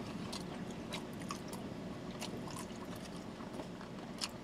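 Two men chewing cheese pizza with their mouths closed: faint, scattered wet mouth clicks and smacks over a low steady background hiss, with one slightly louder click near the end.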